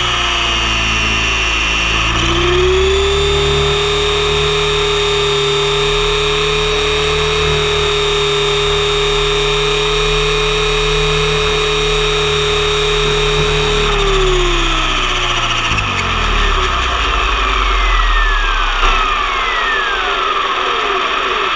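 Radio-controlled helicopter's motor and rotor whining at a steady pitch, dipping briefly in the first two seconds. About 14 seconds in, the whine falls away as the rotor spools down after landing, leaving falling whistles and rushing noise.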